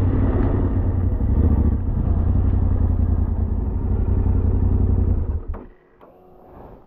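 Yamaha Ténéré 700's 689 cc parallel-twin engine running steadily, then shut off about five and a half seconds in.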